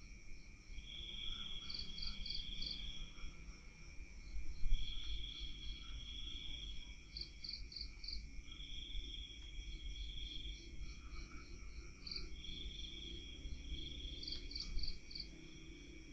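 Night insects calling, chiefly crickets: a steady high chorus with a long trill repeating about every three and a half seconds, alternating with quick runs of four chirps, over a low rumble.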